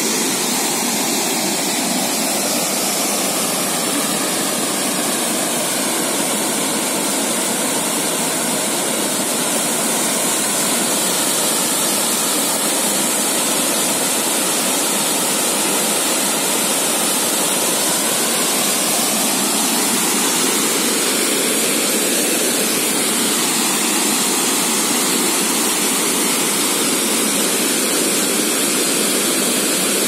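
Dainthlen Falls, a tall waterfall in heavy flow, pouring over a rock cliff: a steady, unbroken rush of falling water.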